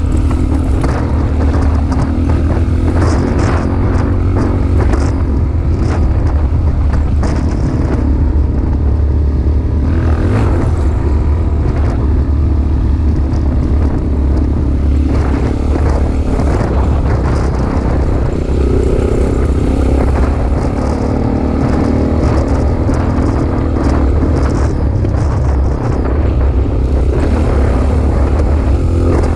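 Off-road vehicle driving along a rough gravel track: a steady, loud low engine rumble, with scattered ticks and crackles from stones under the tyres.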